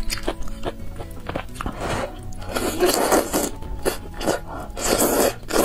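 Thick noodles slurped from a spicy soup: two long slurps, the first about two and a half seconds in and the second near the end, with wet chewing and lip smacks between. Background music plays underneath.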